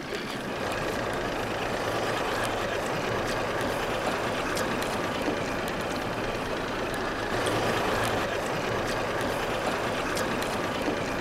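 Boat engine idling steadily under a constant hiss of wind and water, with a few faint clicks.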